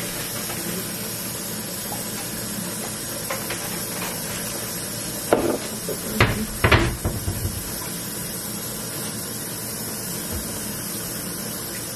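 Steady hiss with a few short knocks and clicks about halfway through, from eating at a table: forks and dishes knocking against plastic takeout containers.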